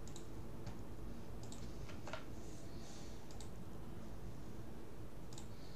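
A handful of separate sharp clicks from a computer mouse and keyboard, spaced out over a few seconds, as a link is copied and pasted, over a steady low background hum.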